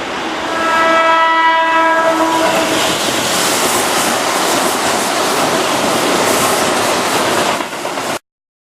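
Keihan 2600-series electric train sounding its horn for about two seconds, one steady chord, then running past with a loud rushing and rail clatter. The sound cuts off suddenly near the end.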